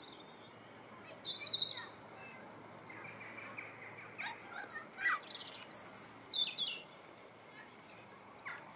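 Small birds chirping and calling. Short high notes and trills come at intervals, loudest about a second and a half in and again around six seconds in.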